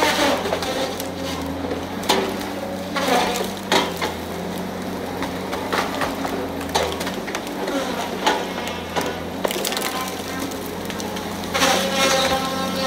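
Tigercat 870C feller buncher running steadily, with sharp cracks and splintering of wood several times over. A higher whine comes in near the end.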